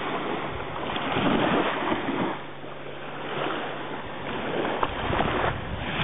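Small sea waves lapping and washing over shallow water at the shoreline, the rush swelling about a second in and again near the end.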